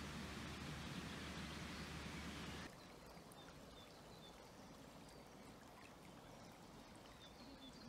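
A rumbling rush of wind on the microphone that cuts off abruptly about three seconds in. After it, the quiet steady rush of a shallow, clear stream flowing over water weed, with small birds chirping in short, repeated notes.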